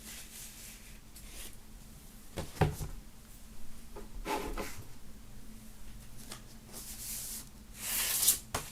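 Handling of a double-vinyl LP album package: a sharp knock about two and a half seconds in, scattered rustles, and a longer rustle near the end.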